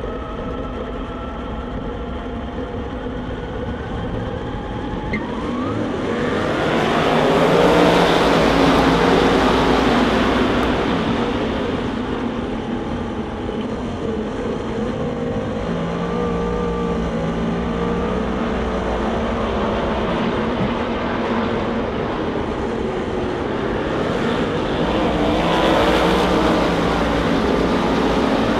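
Winged Super Sportsman sprint cars racing on a dirt oval, engines running hard as the pack circles. The sound swells loudest as the cars pass by about eight seconds in and again near the end.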